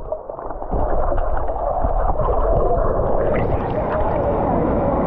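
Water heard through a submerged microphone: a loud, muffled rumble and gurgle with all the high sound cut off, the way a pool sounds with the recorder under water.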